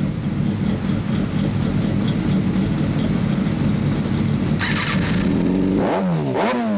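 2014 Kawasaki Ninja ZX-6R inline-four running at idle through an M4 aftermarket exhaust, steady and loud. Near the end the throttle is blipped twice, the pitch rising and falling quickly each time. A brief hissing burst comes just before the blips.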